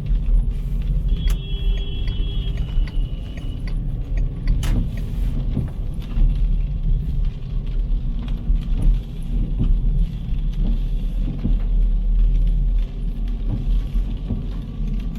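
City street ambience: a steady low rumble of car traffic, with scattered clicks and taps, a brief high-pitched squeal about a second in, and one sharp knock near five seconds.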